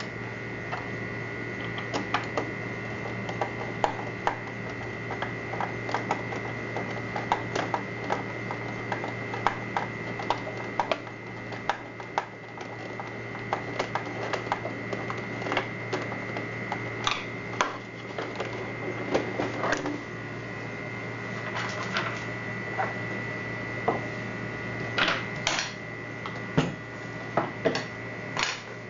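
Irregular clicks and light knocks of small parts and tools being handled, over a steady low hum and a faint high whine.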